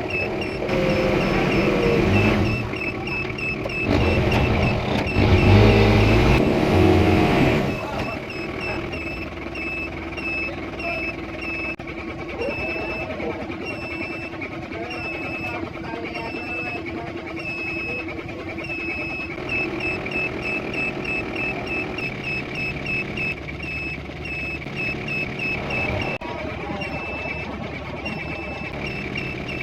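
Off-road vehicle engine running, loudest with surges over the first eight seconds, then steadier. A faint high chirp repeats about twice a second throughout.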